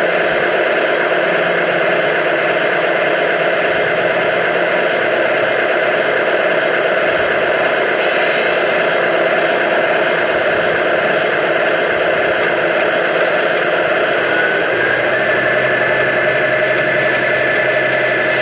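Motor of a model Scania 113 truck running steadily, a continuous mechanical hum and whine. About fourteen and a half seconds in, a tone steps up in pitch and then holds. A short high hiss comes about eight seconds in.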